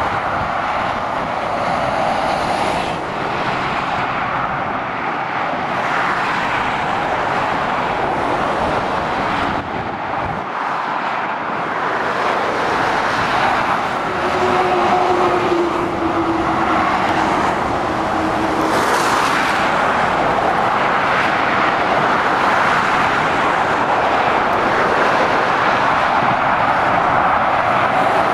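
Steady road traffic noise from lorries and cars passing on a busy main road: continuous tyre and engine rumble with no breaks.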